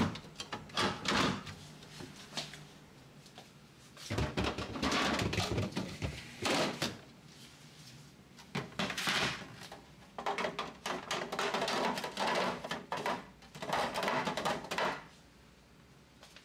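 Refrigerator drawers and plastic storage containers being handled: several bouts of knocking, clattering and sliding with short pauses between them.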